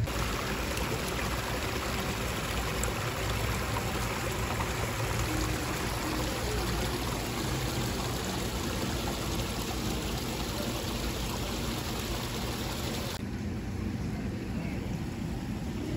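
Water running steadily into a koi pond, a continuous splashing trickle. About thirteen seconds in it cuts off abruptly to a quieter, duller background hush.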